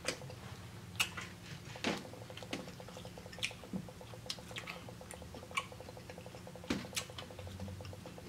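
Close-up wet chewing and lip-smacking of a person eating, scattered soft mouth clicks and squishes, over a faint steady electrical buzz.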